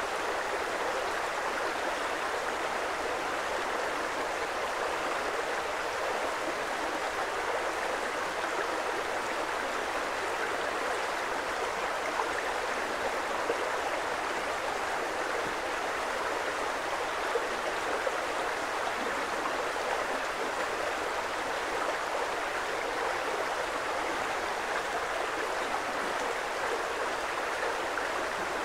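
Creek water flowing, a steady, even rush without let-up.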